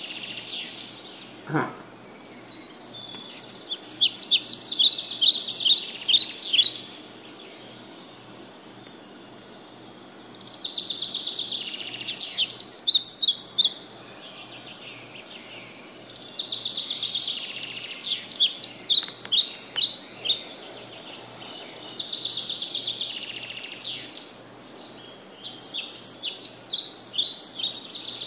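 A songbird singing repeated phrases of rapid, high chirping notes, each phrase a few seconds long with short pauses between. A single short knock comes about a second and a half in.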